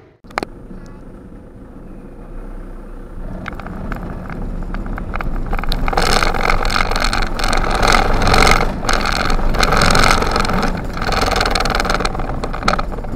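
Van engine and tyre noise heard from inside the cab while driving off a roll-on roll-off ferry down its vehicle deck and loading ramp. It grows louder about halfway through, with many short knocks and rattles over the ramp.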